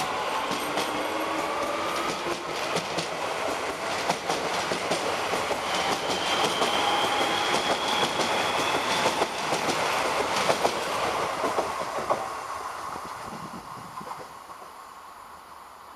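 Irish Rail 8520 class DART electric multiple unit pulling away from the platform: the whine of its traction motors rises in pitch over the first couple of seconds, and its wheels click over the rail joints as the cars pass. The sound fades away after about twelve seconds once the last car has gone by.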